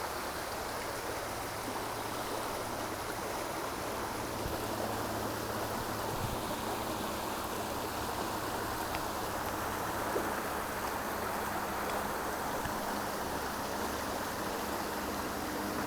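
Small river's flowing water: a steady rush from the current over shallow riffles.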